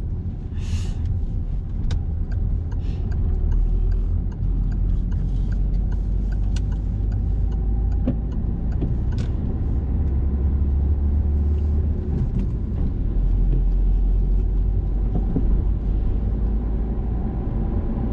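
Inside a moving car's cabin: the steady low rumble of engine and road noise as the car drives along, with scattered faint ticks throughout.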